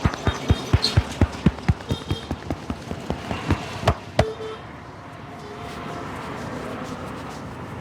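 Rapid rhythmic hand strikes of a head massage, about five a second, fading and ending with two harder strikes about four seconds in; after that only a steady background hum remains.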